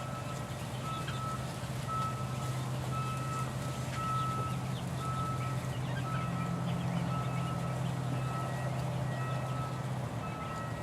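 A vehicle's reversing alarm beeping at an even pace, about one and a half beeps a second, over the steady low hum of its running engine; the engine hum drops away near the end.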